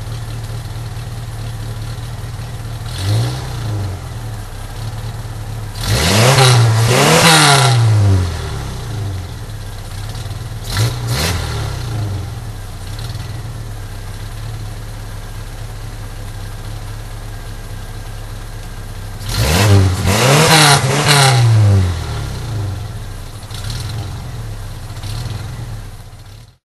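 Ford 2.3-litre four-cylinder engine of a 1990 Mustang, fitted with a Comp Cams 268 camshaft and lifters, idling through its exhaust and revved from idle. There are a few quick throttle blips and two longer revs, the first about six seconds in and the second around twenty seconds in, each climbing and falling back to idle.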